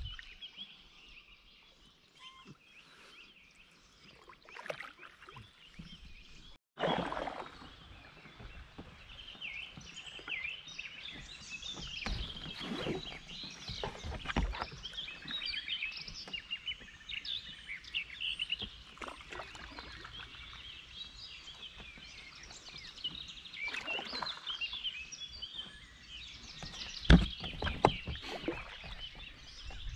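Songbirds singing and chirping along the riverbank, with kayak paddle strokes splashing and dripping in the water every few seconds. Two sharp knocks near the end are the loudest sounds.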